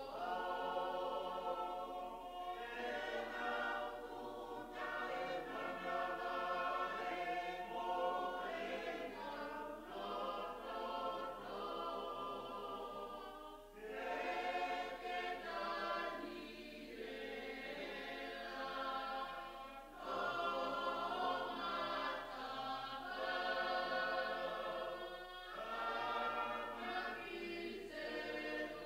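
Choir singing a hymn, with short breaks between phrases about 14 and 20 seconds in.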